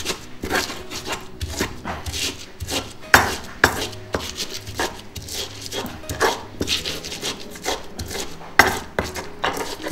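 Stone pestle grinding and pounding green chilies and shallots in a stone mortar (cobek) to make sambal hijau. Stone-on-stone knocks and scrapes come about two or three a second, with a few sharper knocks among them.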